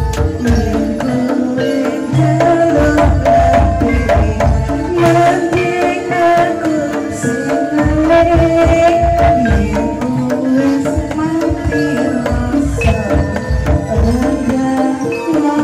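Live Javanese jaranan ensemble music in Kediri style: hand drums beat continuously under a wavering, sliding melody, with steady ringing pitched tones held above.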